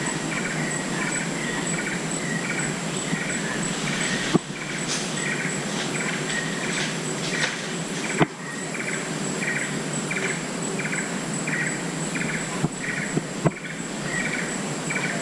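Tropical rainforest ambience: a steady high insect drone with a short chirping call repeated about three times a second. A few sharp clicks are heard.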